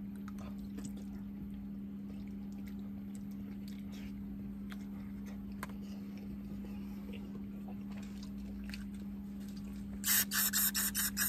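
Faint ticks and wet mouth sounds of someone eating pasta with a fork from a paper plate, over a steady low electrical hum. About ten seconds in comes a quick run of loud crackling pulses, about eight in a second.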